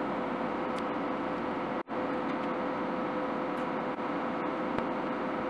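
TIG welding arc tacking the seam of a rolled 304 stainless steel sheet-metal tube: a steady hiss with a faint even hum, breaking off for an instant about two seconds in.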